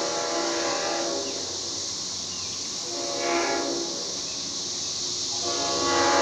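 Leslie RS5T five-chime locomotive air horn blowing in separate blasts: one blast ends about a second in, a short blast comes about three seconds in, and another starts near the end. A steady hiss runs under and between the blasts.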